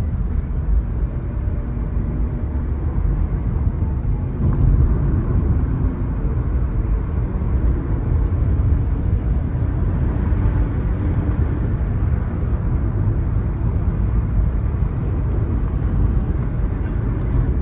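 Steady low rumble of a car driving at road speed, heard from inside the cabin: tyre and road noise with the engine running underneath.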